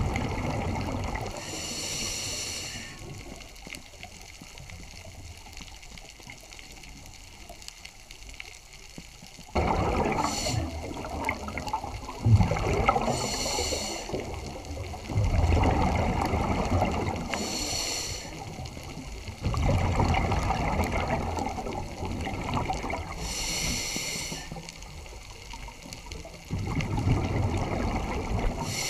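Scuba diver's breathing through a regulator, heard underwater: rumbling, gurgling bursts of exhaled bubbles alternate every few seconds with short hissing breaths. It is quieter for several seconds early on, then the cycle runs regularly.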